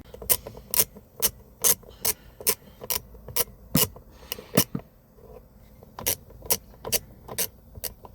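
Sharp, evenly spaced clicks, about two a second with a short pause about halfway through, from a T10 Torx screwdriver being turned back and forth to loosen small screws.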